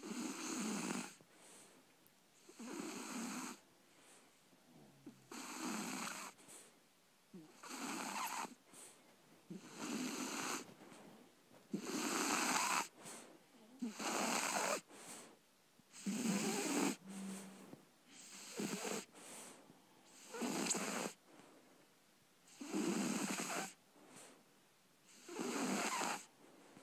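Three-month-old shar pei puppy snoring in its sleep: a snore about every two seconds, each lasting about a second.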